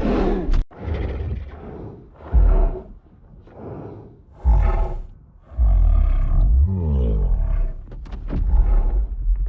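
Monster roar sound effect: about seven roars and growls in a row with short gaps between them, some sliding in pitch.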